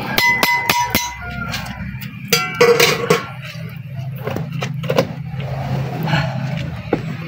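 Metal spatula stirring shrimp in a large steel wok, scraping and knocking against the pan. Two knocks ring briefly, one near the start and one around two to three seconds in, over a steady low hum.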